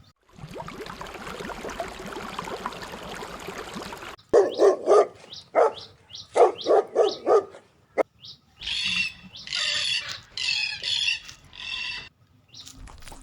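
A dog barking in quick runs of short barks, after a few seconds of steady hiss and before a series of higher, rasping animal calls.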